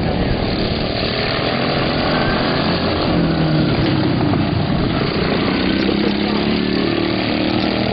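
Engines of several racing riding lawn mowers running hard on a dirt track, their pitch wavering up and down as they race past.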